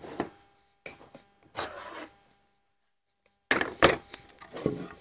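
Wooden handscrew clamps and boards handled on a workbench: scattered wooden knocks and short scraping slides as the clamp is set and the boards are moved. After a short silence, a sharp wooden knock comes near the end and is the loudest sound, followed by a few lighter knocks.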